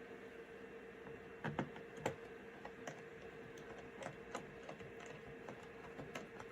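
Scattered light clicks and taps of small tools and parts while a laptop hard drive is screwed back together with a small Torx screwdriver, the two sharpest about a second and a half and two seconds in, over a faint steady hum.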